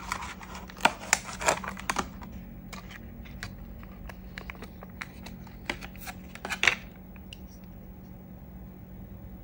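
Rigid clear plastic blister packaging crackling and clicking as it is handled and opened by hand and a die-cast toy car is lifted out of its tray: dense crackles at first, then scattered sharp clicks, and a last loud crinkle about seven seconds in.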